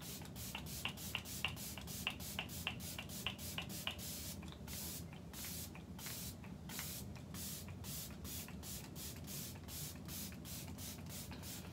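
Makeup setting spray misted from a pump bottle: a quick run of short sprays, about two to three a second, the first dozen or so each with a short high tick from the pump.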